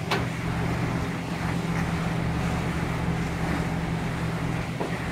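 Steady low drone of a ship's engine under way, mixed with wind on the microphone and the rush of water. A short click comes just after the start.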